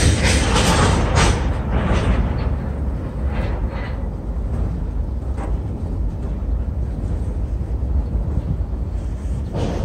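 Freight train of tank cars and hoppers rolling across a steel girder railroad bridge: a steady low rumble of wheels on rail, with several sharp metallic clanks in the first two seconds and one more near the end.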